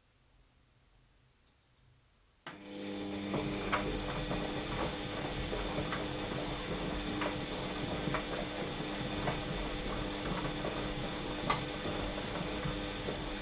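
Washing machine starting up after a pause, about two and a half seconds in, mid-programme: a steady motor hum with a thin high whine over it and scattered clicks and knocks from the turning drum and its load.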